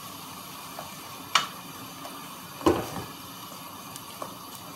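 Wooden spoon stirring chunks of meat and onion in a stainless steel pot, knocking against the pot a few times, the loudest knock just past halfway, over a low steady sizzle of the food frying in oil.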